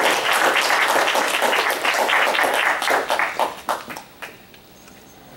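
Audience applauding, the clapping thinning to a few scattered claps and dying away about four seconds in.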